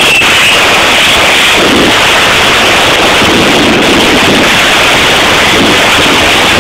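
Firecrackers and spark-spraying firework fountains going off together in a loud, dense, unbroken crackle.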